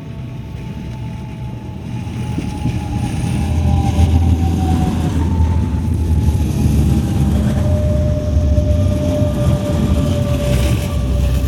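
DB Class 426 electric multiple unit running past, its low rumble growing louder over the first four seconds and then holding. Several thin whining tones above the rumble drift slowly down in pitch.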